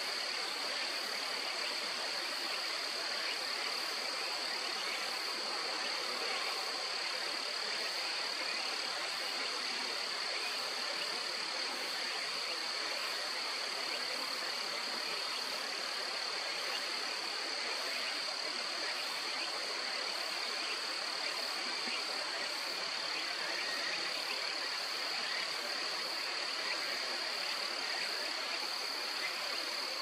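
Steady outdoor ambience: a continuous high-pitched insect chorus that holds one level throughout, over an even rushing background noise. No distinct bird calls stand out.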